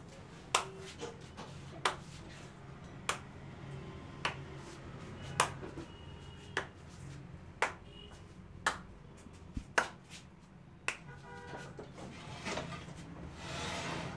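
Sharp snapping claps from a masseur's hands during an Indian head massage, evenly spaced about once a second. Near the end there is a brief rustling, like hands rubbing over hair.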